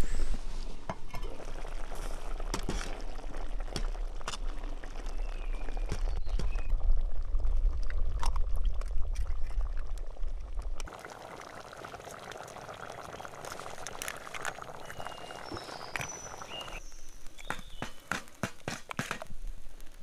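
A dog and a man scuffling and treading on grass over a strong low rumble. About halfway through this gives way to a small pot of tomato and egg stew simmering and hissing on a grill grate over a campfire, with a few high bird chirps and some light metal clicks from the pot lid near the end.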